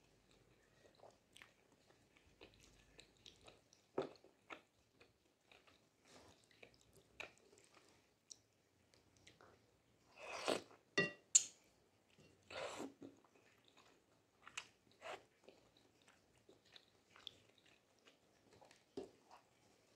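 Close-miked eating of flat rice noodles in broth: soft chewing and small wet clicks, with a run of loud noodle slurps about halfway through.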